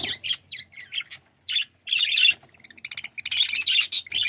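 A group of budgerigars chirping: quick runs of short, sharp calls from several birds overlapping, broken by short pauses.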